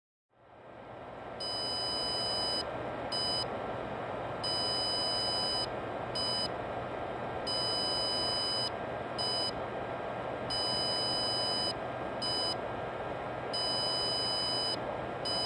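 Walksnail Avatar FPV goggles beeping in a repeating long-short pattern, a long high beep then a short one about every three seconds, over a steady hum. The beeping is the sign that the goggles are bricked after a firmware update was cut short.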